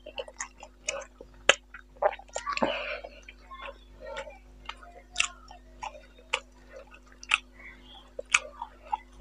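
Close-up eating sounds: irregular wet clicks and smacks of chewing, along with fingers pulling apart curried boal fish and squishing rice on a banana leaf.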